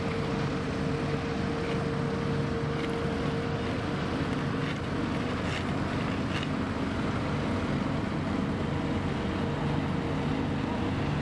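Ammann AV110X tandem asphalt roller's diesel engine running steadily as the roller moves over fresh asphalt, with a steady whine over the engine that fades about halfway through.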